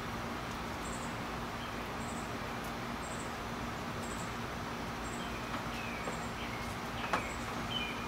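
Quiet backyard ambience: a steady low hum under a faint high chirp that repeats about once a second, with a few short falling bird calls in the second half and a small click near the end.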